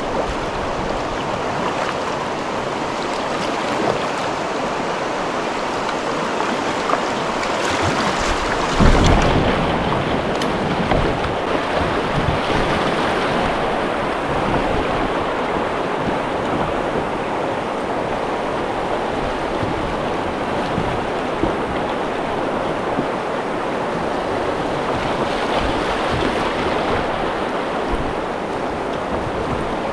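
Steady rush of river water pouring over rocky shoals, mixed with wind on the microphone. About nine seconds in there is a single low thump.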